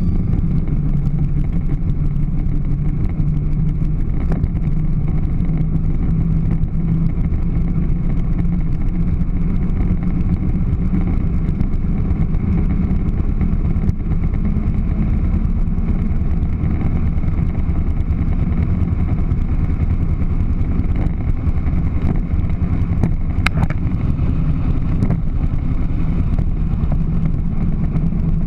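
Pink Power Wheels ride-on toy Jeep driving along asphalt, heard from a camera mounted on the toy: a loud, steady rumble of its wheels and electric drive with a low hum.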